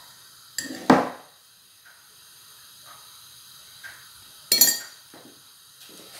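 Kitchenware clinking: a sharp knock about a second in as a container lid is handled, then a metal spoon clinking with a bright ring about four and a half seconds in, with a few light taps between.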